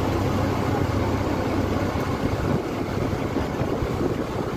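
A tour boat's engine running with a steady low hum, under a rush of wind and water noise.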